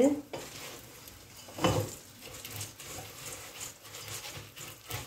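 Wooden spoon stirring dry homemade egg noodles as they fry in oil and butter in a stainless steel pot, with a louder knock about a second and a half in.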